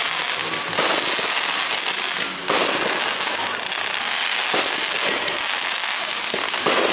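Fireworks display: aerial shells bursting overhead in rapid succession, with a continuous dense crackle from gold glittering stars. Fresh loud bursts come about a second in, about a third of the way through, and just before the end.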